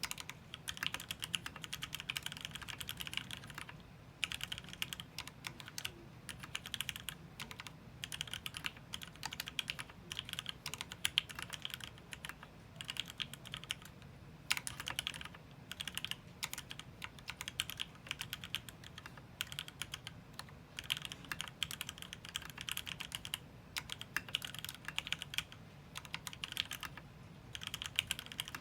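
Mechanical keyboard being typed on in fast runs of keystrokes with short pauses: a Matrix 8X with lubed Gateron Ink Black linear switches on an aluminium plate, stock springs, no sound dampening, and PBT keycaps.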